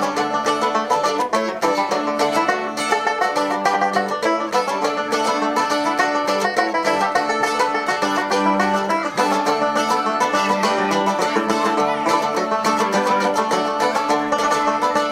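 Live band playing a quick instrumental passage led by fast plucked-string picking, with no singing.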